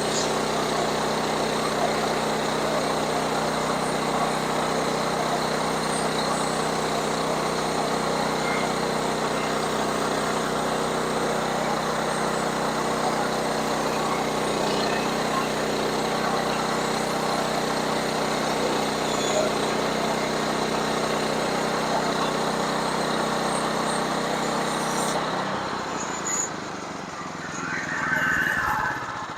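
Sawmill engine running steadily while the blade cuts through a log, with a hum under the noise of the cut. The sound drops off about 25 seconds in, a short brighter sound follows, and then it fades.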